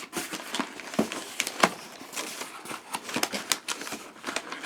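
Packaging being opened by hand: irregular rustling and crinkling with scattered sharp clicks, the loudest about a second and a half in.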